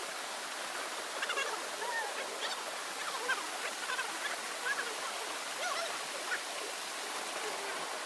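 Small waterfall cascading over rock into a shallow pool: a steady rushing of water.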